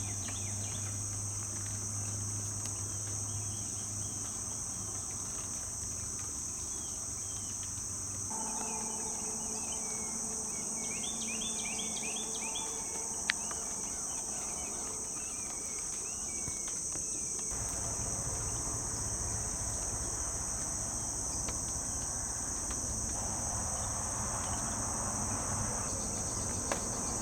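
Steady, continuous high-pitched chorus of insects, crickets or katydids, with a few short chirps about ten seconds in.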